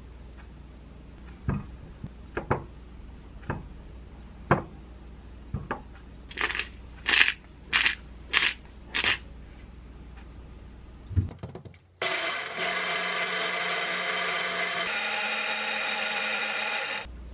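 A few light taps as egg slices are set on an open sandwich, then five short rasps of a pepper grinder. About halfway through, a small countertop blender starts and runs steadily for about five seconds, blending a blueberry yogurt smoothie; its tone shifts partway through before it stops. The blender is the loudest sound.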